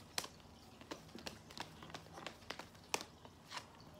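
A deck of tarot cards being shuffled by hand: irregular soft clicks and flicks of card against card, with two sharper snaps, one just after the start and one about three seconds in.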